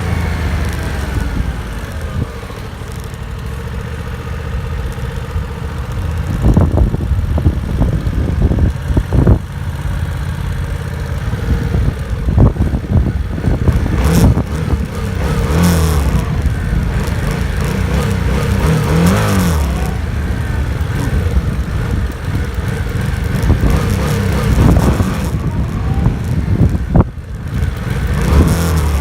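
Yamaha MT-07's 689 cc parallel-twin engine on its stock exhaust, under way, its pitch rising and falling as it accelerates and eases off, with a steady low rumble and short sharp bursts of noise over it.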